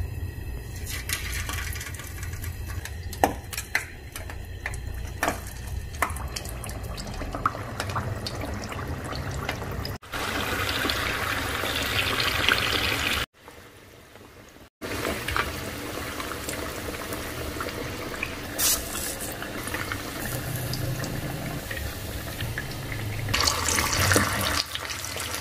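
Boiled potato halves deep-frying in hot oil: steady sizzling and bubbling, with a few sharp clicks of the steel ladle against the pan. The sound dips briefly about halfway through.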